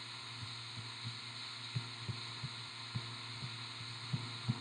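Soft, irregular low taps of a stylus on a touchscreen while words are handwritten, over a steady low hum and hiss.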